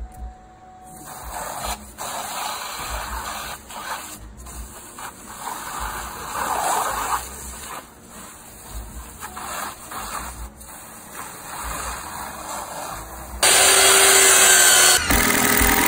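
Pressure washer spraying water against vinyl siding: a steady hiss that starts about a second in and swells and fades as the spray moves across the wall. About two seconds before the end it gives way abruptly to a much louder rushing noise.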